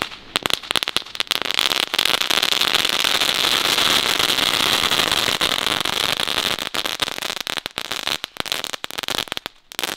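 Small Category 1 ground firework crackling. It starts with scattered sharp cracks, then about two seconds in becomes a dense, steady crackle with a fizzing hiss. It thins out to separate cracks near the end.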